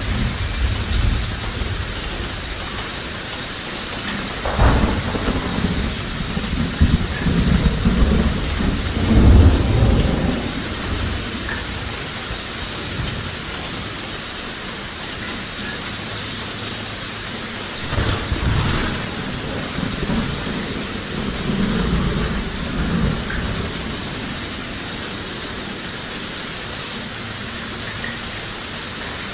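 Steady heavy rain hissing, with thunder rumbling twice: a long roll from about four seconds in and another from about eighteen seconds in.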